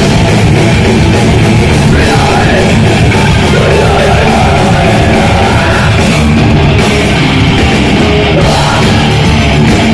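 Live heavy metal band playing loud: distorted electric guitar, bass guitar and a drum kit together.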